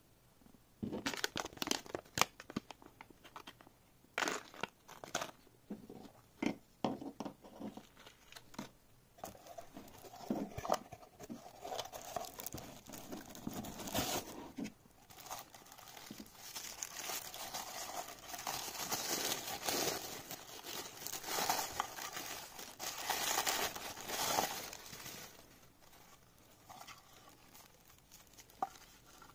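Packaging being handled and unwrapped: crinkling and rustling with scattered sharp clicks and knocks of small parts. The crinkling gets denser in the second half and dies down near the end.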